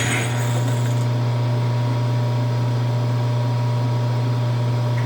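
Hardinge HLV lathe running steadily with a low hum and a fainter steady whine. A high hiss stops about a second in.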